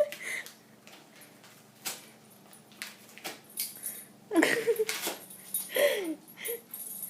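A dog making short whining, grunting sounds in a cluster about four to six seconds in, with scattered sharp clicks throughout.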